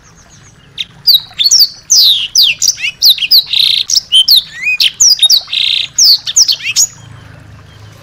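A small songbird singing a fast, loud burst of song from about a second in until near the end: sharp high whistles sweeping downward, quick trills and two harsh buzzy notes.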